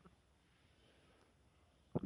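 Near silence between bouts of stomach growling; a gurgling stomach rumble starts abruptly just at the end.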